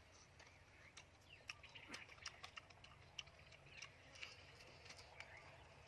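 Near silence: faint scattered clicks with soft chirping traces.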